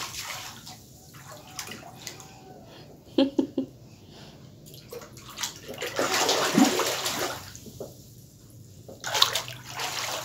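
Floodwater splashing and sloshing in bursts, with the loudest surges about six seconds in and again near the end, and a few short sharp splashes around three seconds in.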